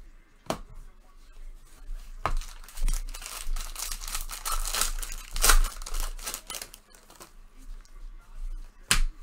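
Wrapper of a trading-card pack being torn open and crinkled, a dense crackle lasting a few seconds, with a few sharp clicks before it and another near the end.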